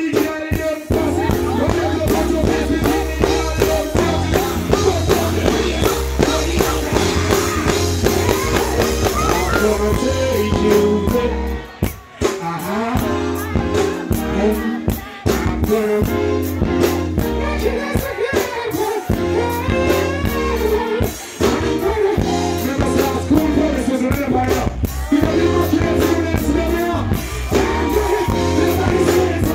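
Live reggae performance: a male singer singing into a microphone over a backing band with bass, drums and keyboards. The music drops out briefly about twelve seconds in and again about fifteen seconds in.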